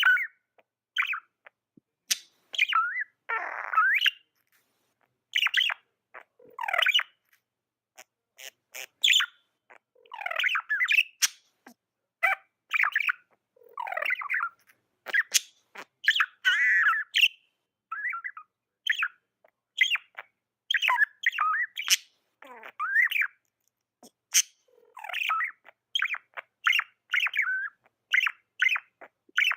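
Pet budgerigars chirping and warbling: a busy string of short chirps and chatter with brief gaps, and a harsher squawk about three seconds in.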